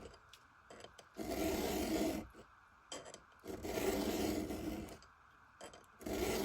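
Round file rasping across the cutters of an Oregon 3/8" .050 chainsaw chain during freehand sharpening: push strokes of about a second each, roughly every two and a half seconds, with quiet between.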